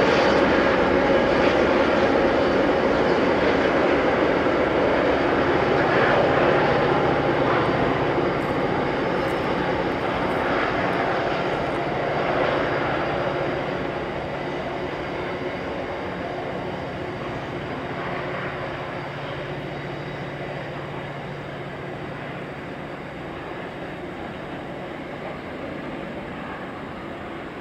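Two diesel-electric freight locomotives, led by 81 class 8150, passing with a train of tank-container wagons. The engines' steady drone fades as they draw away, leaving the wagons rolling by.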